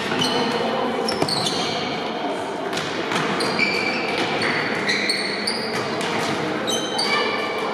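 Indoor futsal play: many short, high-pitched sneaker squeaks on the sports-hall floor, with a few sharp ball kicks, all echoing in the large hall.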